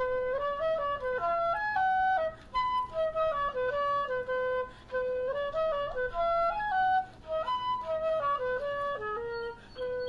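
Background music: a single melody line of held notes stepping up and down, with short pauses between phrases.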